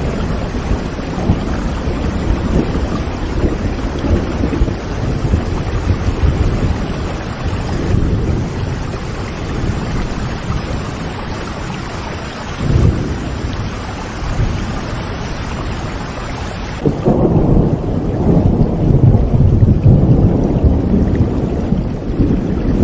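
Steady rain with deep rumbles of thunder. About 17 seconds in the sound changes abruptly: the hiss of the rain turns duller and the low rumble grows louder.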